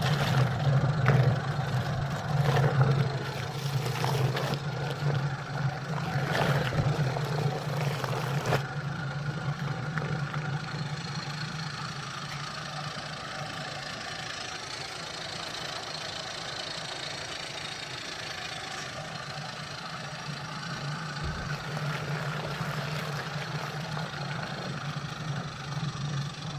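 Small 12 V DC motor of a homemade washing machine running with a steady low hum. Irregular knocks sound over it for the first several seconds, then the running evens out.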